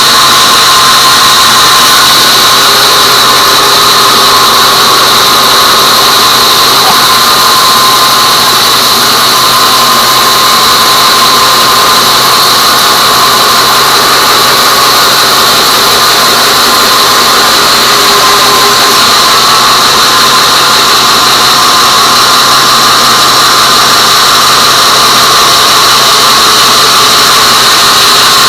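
Band sawmill running and sawing teak, a steady, loud machine noise with a high whine and a low hum.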